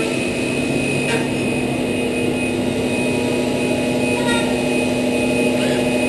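Steady hum and whine of the machinery in an automated robotic deburring cell, with a click about a second in and a few short high tones.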